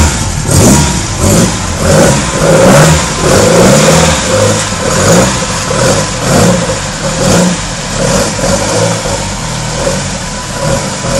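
1965 Alfa Romeo Giulia Sprint GT's 1600 cc twin-cam four-cylinder on twin 45 mm Weber carburettors, still warming up after a cold start, revved in short throttle blips over and over. The blips ease off near the end into a steadier, quieter idle.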